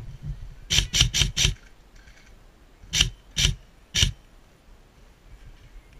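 Airsoft rifle firing single shots: a quick string of four sharp cracks about a second in, then three more, about half a second apart, a couple of seconds later.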